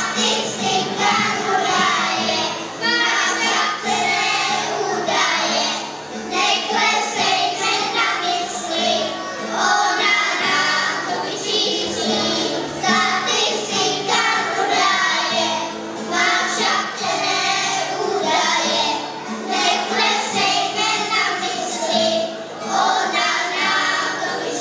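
A group of young children singing a song together, accompanied by an acoustic guitar.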